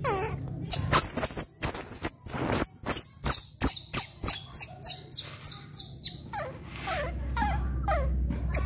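A newborn baby macaque crying. First comes a rapid string of very high-pitched squeals, about three a second. From about six seconds in they change to softer, lower whimpering calls that slide down in pitch.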